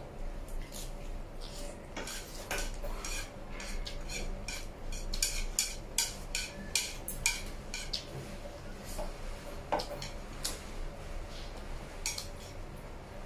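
Close eating sounds: crisp chewing of a lettuce leaf and wooden chopsticks clicking against a ceramic plate while picking up noodles, as a run of short sharp clicks and crunches, densest in the first half.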